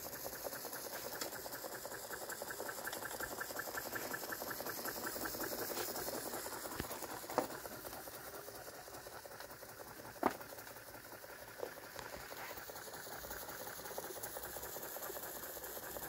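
Carette model 147 toy live-steam engine running: a fast, even mechanical beat from its cylinder and spinning flywheel, with a few sharper clicks near the middle.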